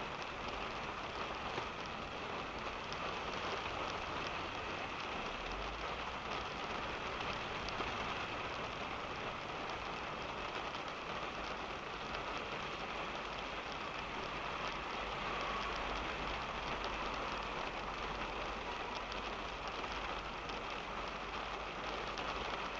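Steady rain pattering on a car's roof and windscreen, heard from inside the cabin: a dense, even patter of drops over a low steady rumble.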